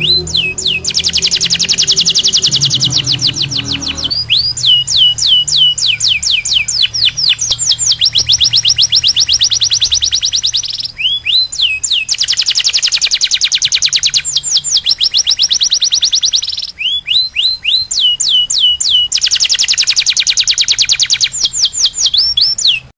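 Domestic canary song used as a master recording for tutoring young canaries: long, fast, even trills alternating with runs of quick falling whistled notes. The same sequence repeats about every 11 seconds.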